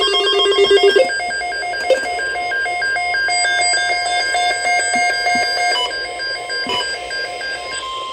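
Emergency Alert System alert tones, loud and electronic: a fast-trilling ringing tone for about the first second, then a pattern of several pure tones pulsing on and off a few times a second, announcing a tornado watch.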